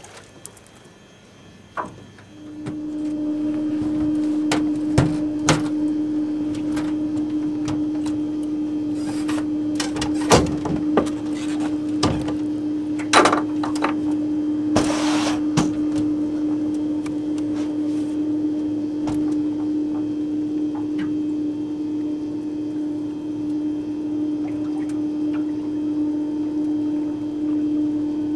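Bow-mounted electric trolling motor running with a steady whine that starts about two seconds in, with scattered knocks and clicks on the boat and a brief rush of noise about halfway through.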